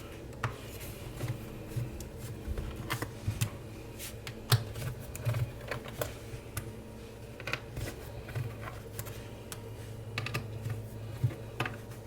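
Irregular light clicks and taps of a precision screwdriver removing the pentalobe screws from the bottom case of a MacBook Pro, with a few sharper knocks now and then.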